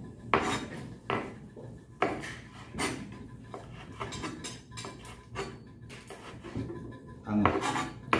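Kitchen knife chopping red chili on a cutting board: sharp, uneven knocks of the blade striking the board, about one a second. A brief pitched sound comes in near the end.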